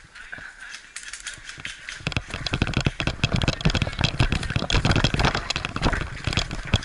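Fast, irregular rattle of sharp clicks over heavy thumps, growing much louder about two seconds in: airsoft guns firing and BBs striking the fort's wooden walls, mixed with knocks from the camera and gear being moved about.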